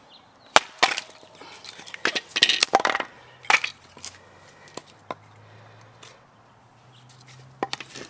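Small hatchet chopping into a short stick of wood, with two sharp knocks in the first second, then a cluster of wooden knocks and splintering clatter as the stick splits and the pieces are handled on concrete.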